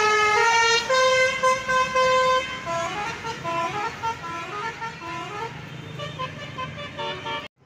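Basuri musical bus horn playing a melody of stepped, held notes, fading as the bus drives away. It cuts off suddenly near the end.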